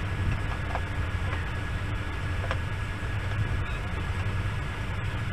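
A few faint clicks and taps of hands and a screwdriver working on a CRT television's plastic back cover, over a steady low background rumble.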